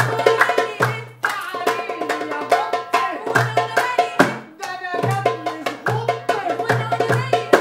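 Live Egyptian folk music: a darbuka (goblet drum) played by hand in a steady rhythm, with deep low strokes under sharper slaps, and a voice singing along.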